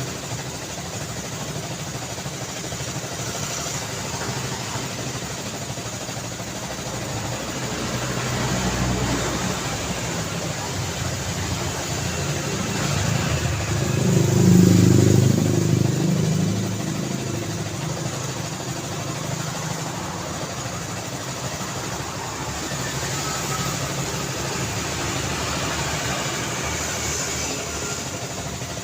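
City road traffic: a steady hum of passing cars and tyre noise, with one vehicle passing close and loud about halfway through.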